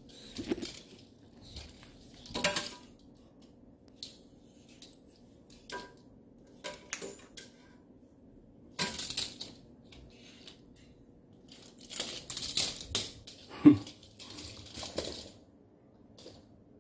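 A small plastic toy car clattering, knocking and scraping on a wooden floor as a kitten bats it and drags it by its string, in scattered bursts of rattles with quiet gaps between, the loudest knock about three-quarters of the way through.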